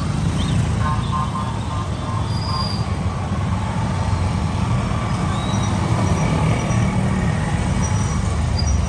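Many motorcycles riding slowly past in a procession, their engines running together in a steady low rumble.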